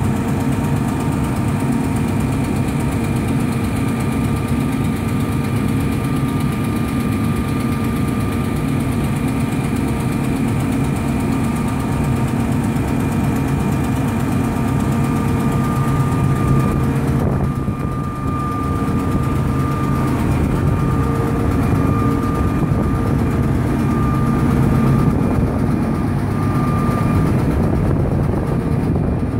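Wirtgen W 210 cold milling machine's diesel engine running steadily at an even speed, with a brief dip in level about seventeen seconds in.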